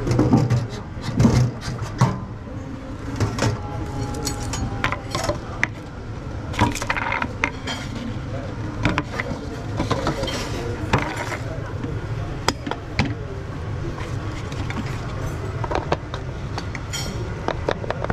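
Food-prep handling noises: scattered clicks, knocks and clinks of utensils and bowls being moved about, over a steady low hum, with voices in the background.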